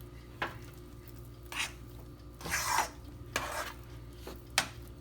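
A spoon stirring and scraping a pot of thick, creamy grits in short strokes, about six times, with one longer scrape a little past halfway. A steady low hum runs underneath.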